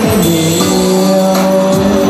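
Live band music between sung lines: sustained chords with light percussion hits.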